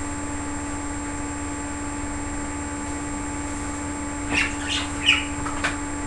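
Budgerigar chirping: a run of short, high chirps starting about four seconds in, over a steady low hum.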